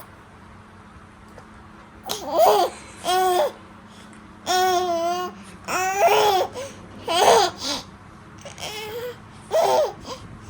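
Baby babbling: after about two quiet seconds, roughly seven short, high-pitched coos and squeals, some of them laugh-like.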